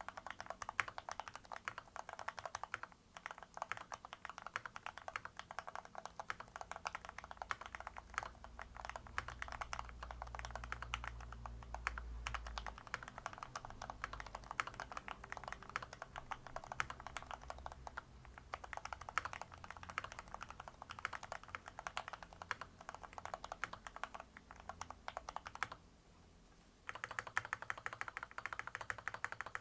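Fast, continuous typing on a mechanical keyboard: a dense stream of key clicks, with a pause of about a second near the end before the typing resumes.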